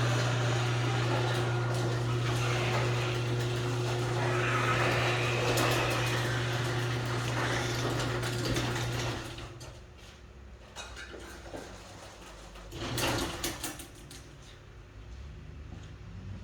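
A steady machine hum that cuts off abruptly about nine seconds in, followed by a few knocks.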